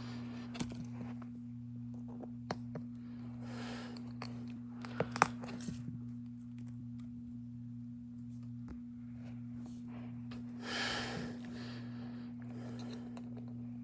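Small clicks and taps of phone parts being handled during a teardown, with brief scraping or rustling about 4 and 11 seconds in, over a steady low hum.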